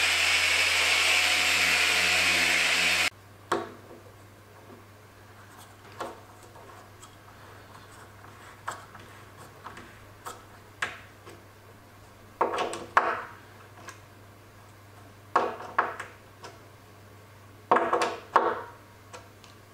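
A power sander with dust extraction running steadily on black walnut, cutting off abruptly about three seconds in. Then light scattered clicks and a few brief clusters of scraping and rattling as brass threaded inserts are screwed by hand into the walnut top with a T-handle hex driver.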